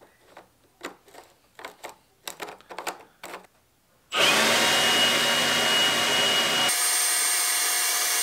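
A few faint clicks of plastic parts being handled, then about four seconds in a Milwaukee M18 cordless leaf blower starts and runs steadily with a high whine, blowing air through a 3D-printed nozzle into an air mattress. A couple of seconds later the sound changes abruptly: the low part drops out and the whine jumps higher.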